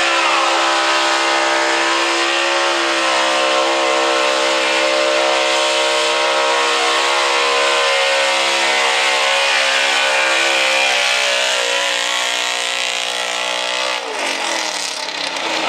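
Gas V8-class engine of a Chevrolet 4x4 pickup held at high, steady revs under full load while pulling a weight-transfer sled. The pitch sags slightly near the end, then falls away sharply about fourteen seconds in as the pull ends and the engine winds down.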